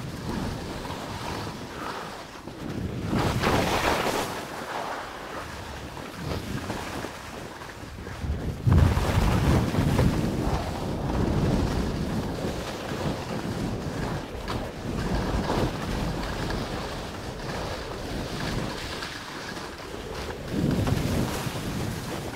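Wind buffeting the microphone on a fast downhill run on snow, with surges of rough scraping as the edges bite into the snow, loudest about nine seconds in.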